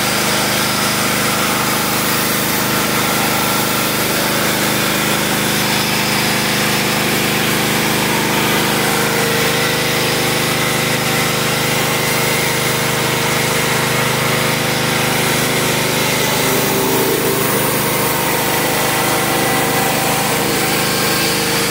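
Pressure washer running steadily, with a constant hiss of water spray from a round surface-cleaner attachment worked across a trailer roof.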